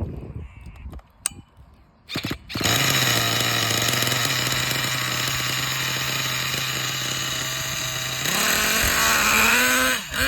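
Freshly rebuilt Thunder Tiger S50 8.2cc engine starting on its first run. It catches after a couple of short bursts about two seconds in, runs at a steady idle, then revs up with a rising pitch about eight seconds in, dipping briefly near the end.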